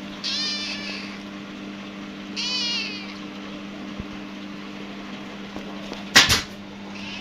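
A young tabby kitten meowing twice, two short high calls about two seconds apart, over a steady low hum. Near the end a loud, sharp double knock.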